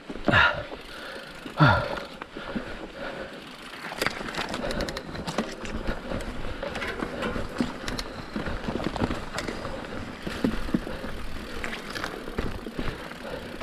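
Mountain bike rolling down a rough dirt trail: steady tyre noise on the ground with many small rattles and knocks from the bike over bumps. Two short falling sounds come near the start.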